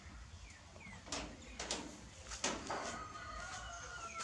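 A few sharp knocks, then near the end a long, steady animal call with several stacked tones; short high falling chirps come early on.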